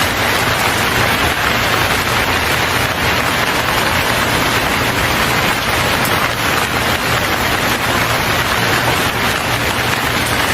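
A steady, loud rushing hiss with a faint low hum beneath it.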